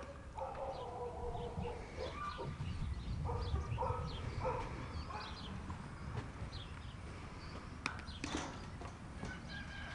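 Thai Ridgeback puppies whining: a string of short, steady-pitched whines in the first half, with faint bird chirps.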